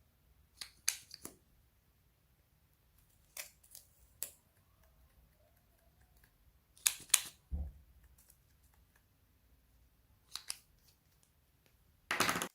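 Slime being handled close to the microphone, giving crisp clicks and crackles in short clusters a few seconds apart, the longest near the end.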